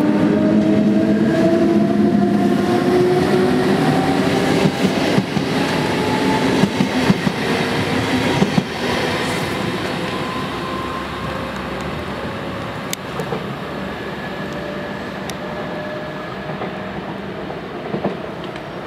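SBB double-deck S-Bahn train with a Re 450 electric locomotive pulling away, its electric traction whine rising in pitch as it accelerates. Wheels clatter over rail joints and points in the middle, and the sound slowly fades as the train moves off.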